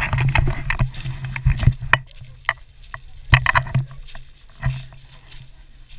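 Irregular knocks, crackles and rustling close to the microphone, over a steady low rumble: handling noise from a camera being moved or settled.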